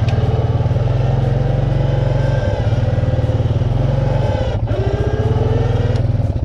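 Four-wheeler engine running steadily, with a fainter whine that slowly rises, breaks off briefly about four and a half seconds in, then rises again.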